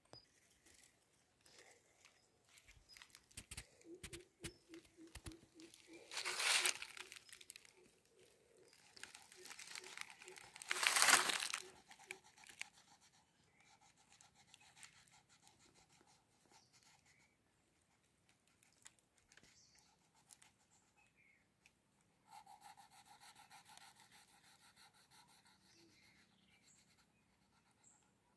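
Oil pastel crayon rubbing and scratching on drawing paper in small strokes, with two louder rustles about six and eleven seconds in and a faster run of scratchy strokes near the end.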